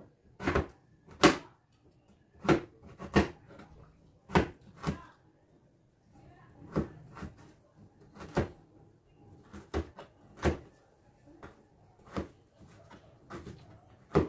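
A kitchen knife slicing on a cutting board. Its blade strikes the board in sharp knocks, about fifteen of them, coming unevenly roughly once a second.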